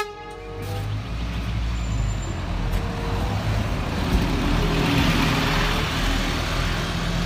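Scania city bus running and pulling away, a steady low engine hum under road and engine noise that swells gently about five seconds in.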